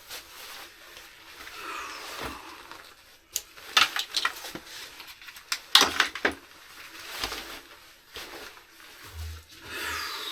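Scattered clicks and knocks with soft rustling, the sound of someone handling things in a small room. A few sharp knocks come between about three and six and a half seconds in.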